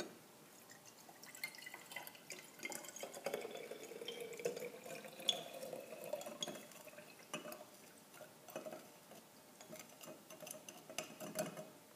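Sugar solution poured from a glass beaker down a rod into a glass conical flask: a thin trickle whose pitch rises a little as the flask fills, with light clinks of glass and last drips near the end.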